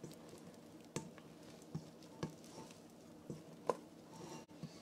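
Small stiff spatula scraping a thick cocoa-and-butter icing mixture down the sides of a stainless-steel mixing bowl: quiet scraping with a few light clicks and taps of the spatula against the bowl.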